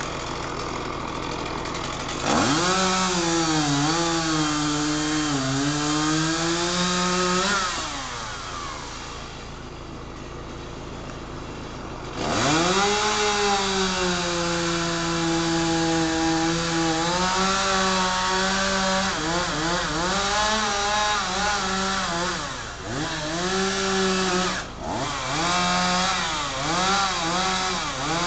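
Two-stroke chainsaw idling, then revved up to cut into a felled ailanthus trunk: a cut of about five seconds starting about two seconds in, back to idle, then a longer cut of about ten seconds, the pitch sagging as the chain bites into the wood, ending in several short revs near the end.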